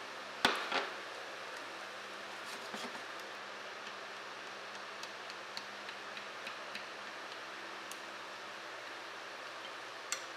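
Wooden chopsticks stirring diced tomatoes and garlic in a nonstick frying pan: two sharp knocks against the pan about half a second in, then scattered light ticks and taps, and one more click near the end, over a steady soft hiss.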